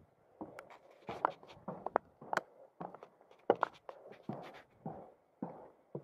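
Footsteps of a person walking on a trail: a steady run of short steps and scuffs, roughly two a second.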